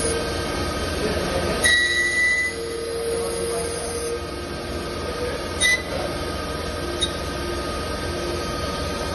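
CNC machine running with a steady whine of several tones, broken by a high-pitched squeal for under a second about two seconds in and by two short squeaks later on.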